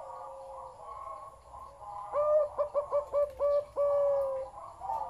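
Zebra dove cooing: a quick run of about seven short staccato notes starting about two seconds in, ending in one longer drawn-out note. Softer bird calls sound behind it.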